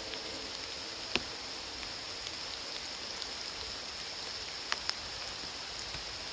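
Steady light rain falling, an even hiss, with a sharp tap about a second in and two more close together near five seconds.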